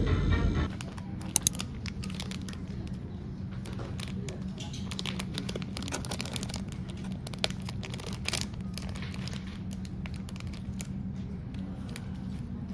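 Background music cuts off about half a second in. Then a packaged cookie's plastic wrapper crinkles and tears in irregular crackles as it is opened and handled, over a steady low room hum.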